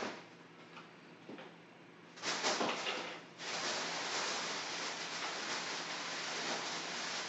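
Handling and rustling noise. There are a few faint ticks, then about two seconds in a short louder scraping rustle, followed by a steady rustle that runs on.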